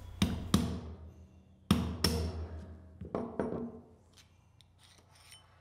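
Shop hammer striking a long steel punch to drive the outboard bearing out of a Crank Brothers Mallet pedal body: six sharp metallic taps in three pairs, each ringing briefly, followed by a few faint clicks near the end.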